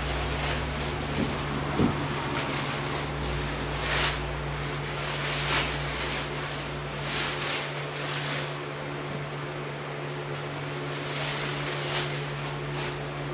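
Clear plastic bag rustling and crinkling as it is handled, in several short bursts, over a steady mechanical hum.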